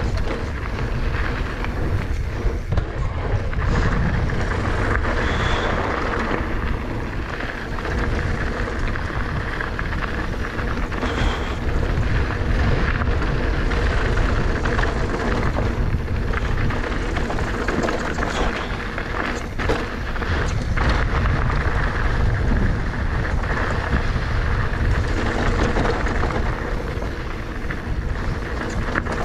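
A 2019 Giant Trance E+ 2 electric mountain bike rolling fast down a dirt trail: a steady rumble of wind and tyres on the microphone, with frequent rattles and knocks from the bike over bumps, and two brief high squeaks about 5 and 11 seconds in.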